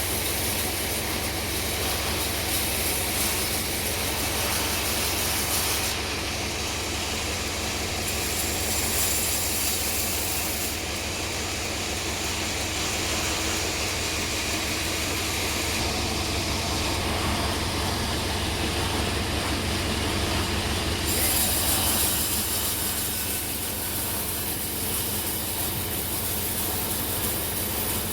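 Sawmill running, sawing a log of hard bongkeng wood: a steady low machine hum under a high hiss that drops away and comes back several times.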